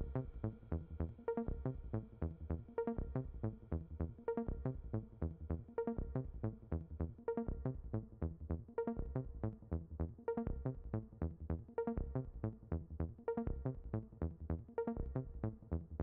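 Electronic background music with a steady beat.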